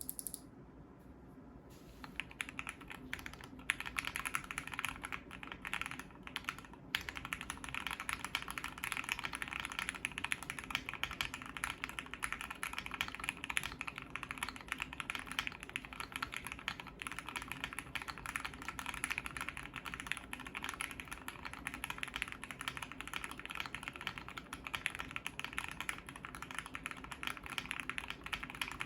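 Fast, continuous typing on a Brutal60 custom mechanical keyboard with lubed Gateron CJ linear switches, an FR4 plate and GMK keycaps, dampened with a two-layer tape mod and poly-fil. The typing starts about two seconds in, pauses briefly near seven seconds, then runs steadily on.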